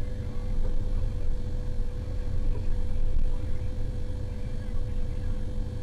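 Large motor grader's diesel engine running under load, a steady low rumble with a constant whine over it.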